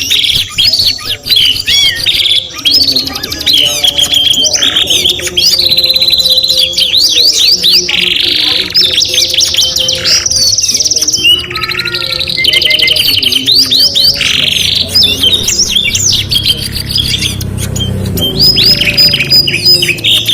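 Domestic canaries singing a loud, near-continuous song of rapid trills, rolls and sweeping whistled notes, with brief pauses between phrases.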